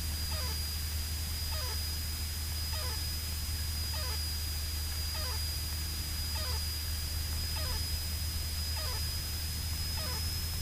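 Light aircraft in flight: a steady engine-and-propeller drone with hiss and a thin high whine. A faint falling chirp repeats about every two-thirds of a second.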